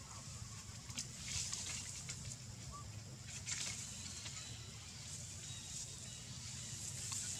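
Outdoor background: a steady low hum and a faint high hiss, with a few brief soft rustling noises about a second in and again about three and a half seconds in.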